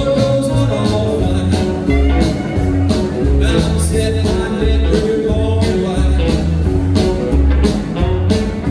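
A rockabilly band playing live: upright bass and drums keep a steady beat under acoustic guitar, electric guitar and steel guitar.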